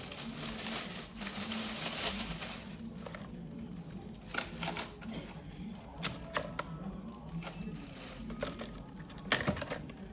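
Objects being handled while a refrigerator is cleaned out: a rubbing, wiping sound for the first few seconds, then scattered clicks and knocks as things are moved and set down. A low hum runs underneath.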